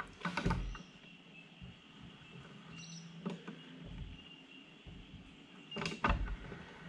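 A pointed engraving tool scribing graduation lines into the rim of a metal dial ring on a mill-drill. It gives three short scraping, knocking strokes about three seconds apart, one for each line, over a faint steady hum.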